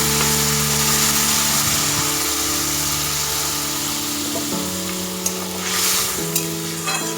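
A pan of vegetables and ghatkol stems in hot oil and spices, sizzling steadily just after water has been poured in. The hiss swells louder about six seconds in.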